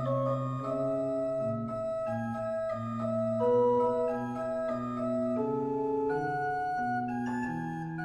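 Organ playing a slow piece: several notes held together, each sounding at an even level without fading, with the notes changing one after another.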